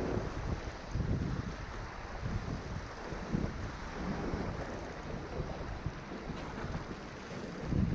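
Wind buffeting the microphone: a steady rushing noise with low rumbling gusts about a second in, around three and a half seconds in and near the end.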